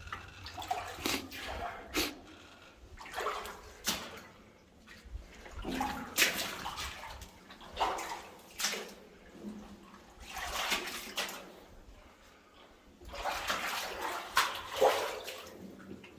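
Footsteps wading through shallow water and mud in a flooded mine tunnel, a sloshing step every second or two.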